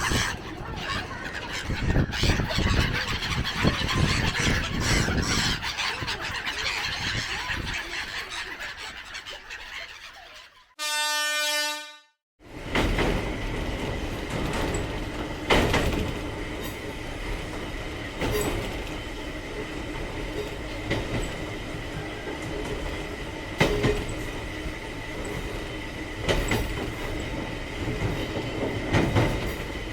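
Train running on rails, its rolling noise fading out about ten seconds in. A short single horn blast of about a second and a half follows. Then the train rolls on again with a faint steady whine and a clack every few seconds from the rail joints.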